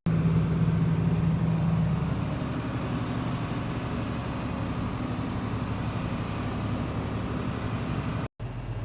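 Farm tractor engine running steadily while driving off, with a stronger held engine note for the first two seconds. Near the end the sound cuts out abruptly and a lower engine hum follows.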